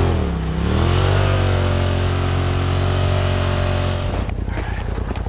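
Polaris RZR side-by-side's engine under throttle: the pitch dips briefly, climbs back and holds steady as the machine drives off across the snow. About four seconds in, the steady engine note gives way to a rougher, noisier rumble.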